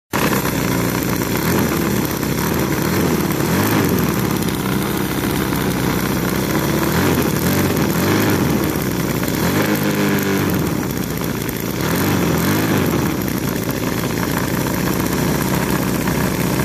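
CISON FG-VT9 9cc V-twin four-stroke air-cooled model gasoline engine running steadily, its speed wavering briefly about ten seconds in and again near twelve. It is running well.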